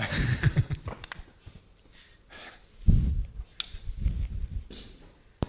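Breathy laughter at first, then muffled low thumps and rustling as the lectern microphone is handled, with two sharp clicks near the end.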